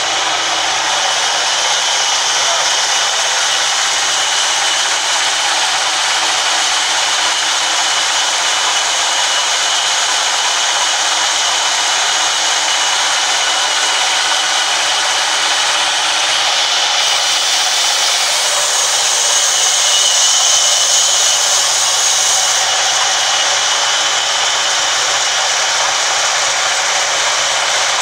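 Large log band saw of a sawmill running steadily with a continuous, even noise that gets louder and brighter for a few seconds about two-thirds of the way through.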